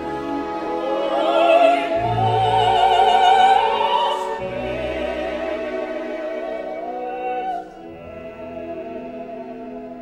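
Slow classical background music: a melody line with wide vibrato over sustained accompaniment, getting quieter about three quarters of the way through.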